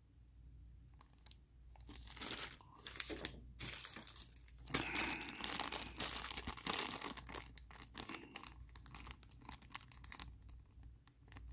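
Small clear plastic zip bags holding miniature figures being handled and crinkled between the fingers: an irregular crackling that is busiest in the middle.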